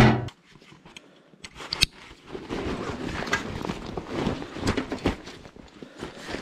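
A loud knock at the very start, then about a second and a half in a run of irregular rustling, clicks and knocks of camping gear being handled and packed.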